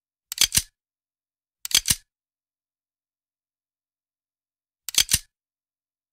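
Mouse-click sound effects for an animated subscribe button: three quick double clicks, about half a second in, near two seconds in and about five seconds in.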